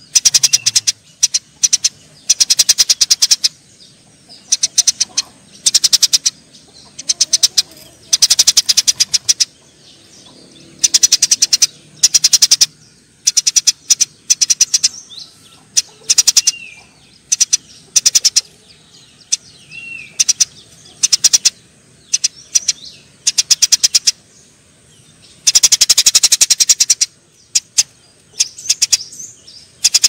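Eurasian tree sparrows chattering in repeated bursts of very fast, high chirps, each burst a second or two long with a longer one near the end: the excited calls of sparrows fighting.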